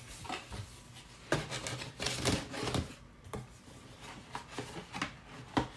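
Handling noises from boxes and packaging on a desk: scattered light knocks, clicks and rubbing, irregular and a dozen or so in all.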